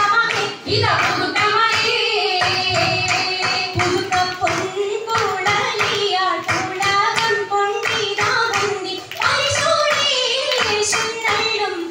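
Oppana song: a Mappila-style sung melody over a steady beat of rhythmic hand-clapping.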